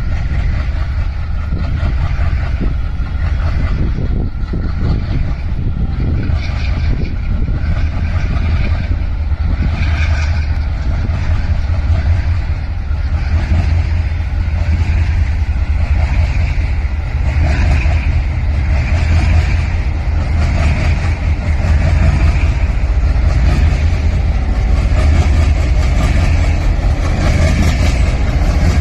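Twin WDM-3A diesel-electric locomotives, ALCo 16-cylinder engines, running under load with a loud, steady low rumble that grows slightly louder.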